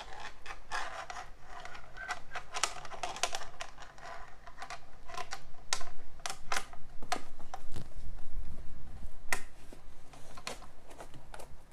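Irregular clicks, taps and light knocks of hands handling computer parts: a CPU cooler's backplate being fitted under a motherboard.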